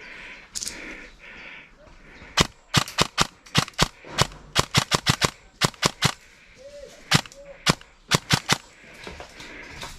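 Airsoft guns firing, some two dozen sharp cracks in quick, uneven strings, starting about two seconds in and stopping about a second and a half before the end.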